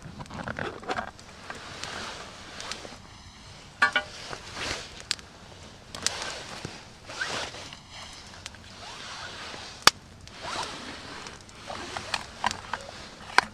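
Handling of an aluminium mess tin on a wire camp grill: its lid is taken off and set down, with light metallic clinks and knocks and glove and clothing rustle. A sharp click comes about ten seconds in.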